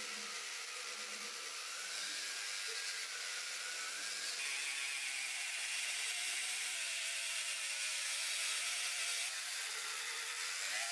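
Small pen-style rotary tool whirring steadily as it spins a foam polishing pad against a model car's painted body, with a hiss from the pad rubbing. The motor's whine wavers slightly in pitch as the pressure changes, and the hiss grows brighter about four seconds in.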